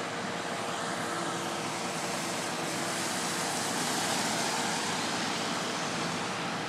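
Road traffic noise: a vehicle's tyres hissing on wet pavement as it passes, swelling about four seconds in and easing off, over a steady hum.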